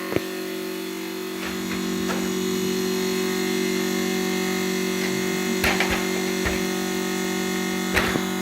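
Refrigerator making a strange, steady buzzing hum with a thin high whine over it, the noise the owner is hunting for at the back of the unit. A few sharp clicks break in near the end.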